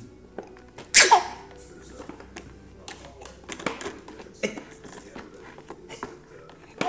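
A baby gives one short squeal that drops in pitch about a second in, followed by light scattered taps and clicks of small hands slapping a plastic activity toy.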